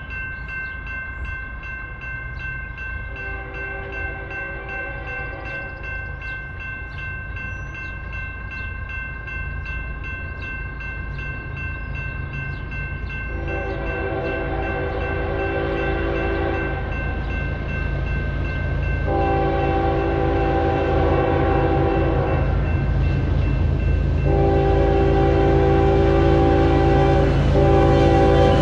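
Norfolk Southern diesel freight locomotive's multi-chime air horn sounding four blasts of about three seconds each as it approaches a grade crossing, the last blast briefly broken near the end, over the steady ringing of the crossing bell. The locomotive's low rumble grows steadily louder as the train nears.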